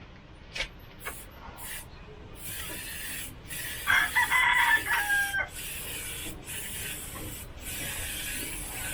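Air spray gun hissing in short bursts and longer pulls as paint is sprayed, with a rooster crowing loudly once about four seconds in.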